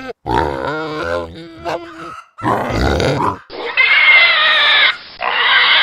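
Pigs grunting in a run of low calls. About three and a half seconds in, a louder, high-pitched call takes over, broken once by a short gap.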